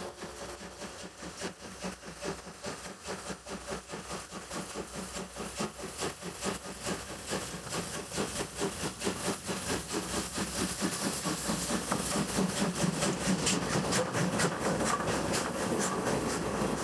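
Steam locomotive C58 239 passing at speed, its quick, even exhaust beats and running gear mixed with the wheels of the coaches clattering along the track. It grows louder as the train comes by and is loudest as the coaches pass, near the end.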